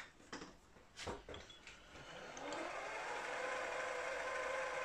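Small milling machine's spindle motor switched on about two seconds in, its whine rising in pitch as it spins up to speed, then running steadily with the gear cutter turning free, not yet cutting. A few sharp clicks come before it, in the first second and a half.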